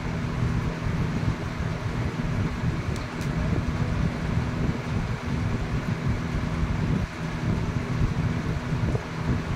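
Steady low rumble with a constant low hum underneath.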